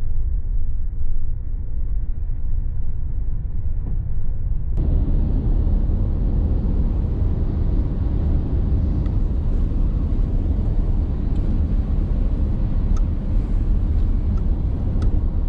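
Road and engine noise inside a van's cabin at motorway speed: a steady low rumble, which turns brighter and fuller about five seconds in, where the recording cuts to another shot.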